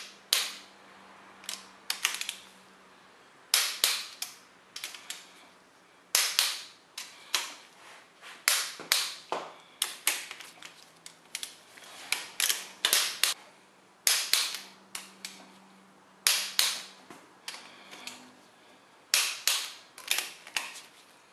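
Click-type torque wrench on cylinder head bolts: repeated sharp clicks at irregular spacing, some in quick clusters, each as a bolt reaches the set torque on the way to 70 foot-pounds.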